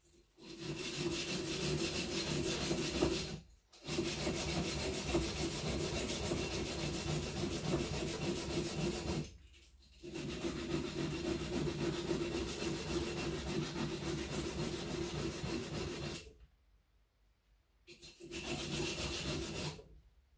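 Mora semi-flex boning knife blade rubbed flat against a sharpening stone: a steady scrubbing in four long spells with short pauses between them. The sides of the blade are being ground down to thin it.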